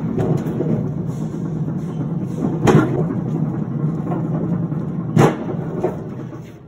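Loaded flatbed cart rolling over a concrete floor: a steady low rumble from its wheels, with two sharp knocks, one midway and one about three-quarters through, then dying away near the end.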